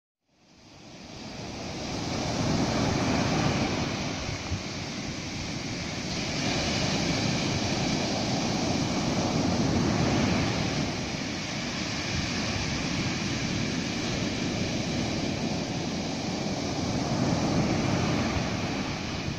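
Ocean surf breaking and washing up a sandy beach, a steady rush that swells and eases every several seconds, with wind buffeting the microphone. The sound fades in over the first two seconds.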